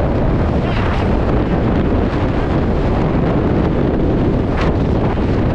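Steady rush of wind over the microphone of a Yamaha sport bike riding at highway speed, loud enough to cover the engine.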